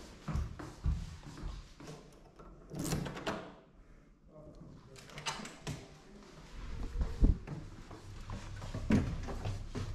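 A key on a metal chain worked in a hotel room door's lock, with clicks and rattles of the lock and key, then the door opening with a few knocks and thumps.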